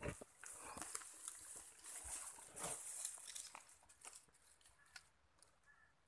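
Rustling and knocks of a camera being carried through grass and set down on the ground, fading to faint outdoor quiet in the second half.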